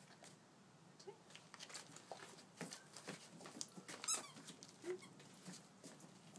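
Plastic tarp crinkling and rustling under a wolfdog's paws and a person's feet, with scattered clicks. About four seconds in comes one short rising squeak, the loudest sound.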